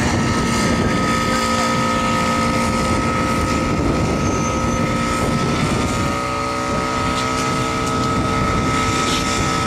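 Motor fire pump engine running steadily under load, feeding the hose lines that are spraying water. Its note shifts slightly about six seconds in.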